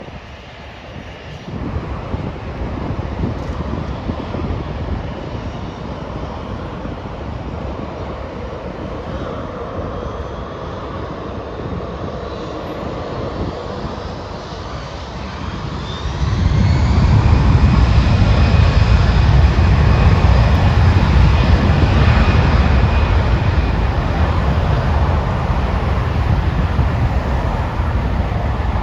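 Jet airliner engines: a rising whine over the next several seconds, then about halfway through a sudden, much louder low roar that holds.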